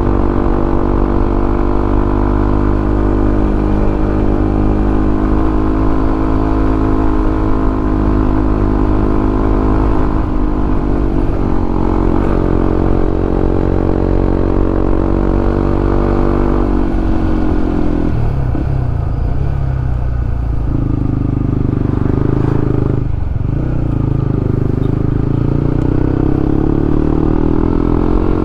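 Honda CB150X's single-cylinder engine running under way on a ride, steady at first; about two-thirds of the way in the engine note drops as the bike slows, then climbs again with a brief break as it picks up speed through the gears.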